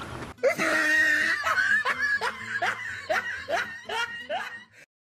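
Laughter in a run of short bursts, about three a second, starting suddenly and cut off abruptly near the end.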